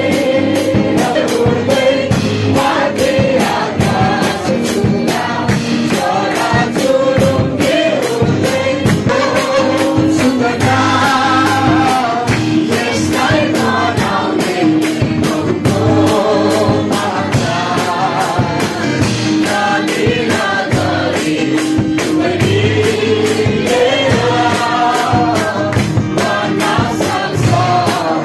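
A group singing a gospel worship song over a steady percussion beat.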